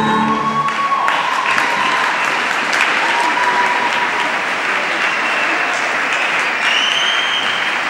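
Audience applauding at the end of a skating routine, with a high whistle rising above the clapping near the end. The routine's music dies away in the first second.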